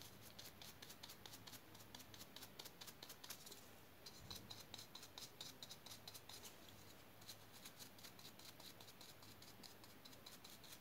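Faint, rapid scratching of a stiff drybrushing brush's bristles scrubbed back and forth over a textured resin diorama base, several strokes a second, with a brief pause about four seconds in.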